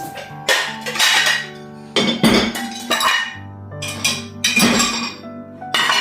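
Dishes and cutlery clattering and clinking as they are stacked into a dishwasher, with a sharp knock every half second to second, over background music.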